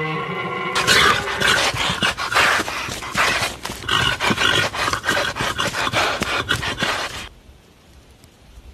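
A dog-like animal growling and snarling, rough and uneven, starting about a second in and cutting off suddenly near the end.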